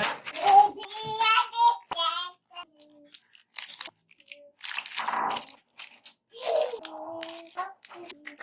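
Packets and containers being handled, with crinkling, rustling and scattered clicks. A high, wavering voice sounds briefly in the first two seconds.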